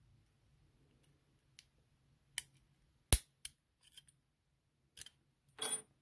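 Old Master Lock No. 77 padlock being worked by hand: a run of separate sharp metal clicks from its shackle and key, the loudest about three seconds in, then a short metallic rattle near the end.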